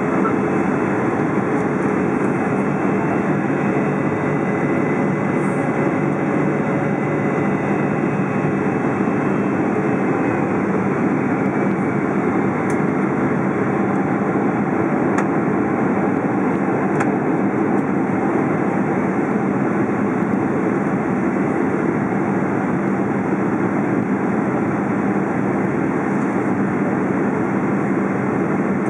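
Steady cabin noise inside a Boeing 777-200 on descent: the drone of the twin-jet's engines mixed with airflow rushing past the fuselage, with a low, even hum underneath.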